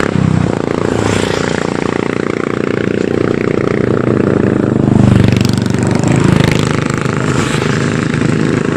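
A line of motorcycles riding up and passing one after another, their engines running, with louder swells of revving about halfway through.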